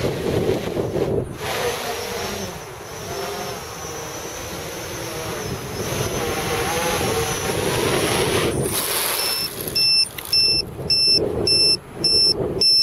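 Quadcopter motors and propellers whirring, the pitch wavering as the throttle changes. About three quarters of the way in they give way to a rapid electronic beeping, about two or three short beeps a second, once the quad is down on the ground.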